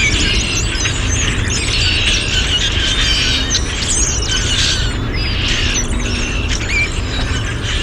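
A mixed flock of red-winged blackbirds, common grackles and brown-headed cowbirds calling all at once: a dense chorus of many short overlapping calls over a steady low rumble.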